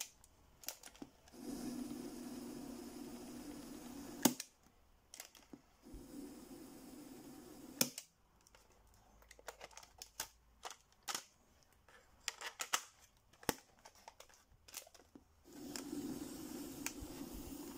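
Clicks of a Sony WM-8 Walkman's buttons being pressed, with a faint low hum of the cassette mechanism running in a few short stretches between clicks.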